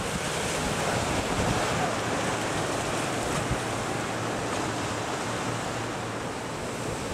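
Sea surf washing and breaking over a rocky shore, a steady rush of water, with a few low buffets of wind on the microphone.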